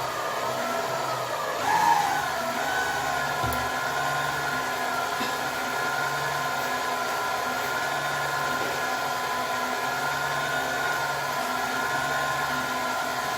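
Electric mixer running steadily, beating cake batter of eggs, sugar, oil, yogurt and lemon juice, with a brief shift in pitch about two seconds in.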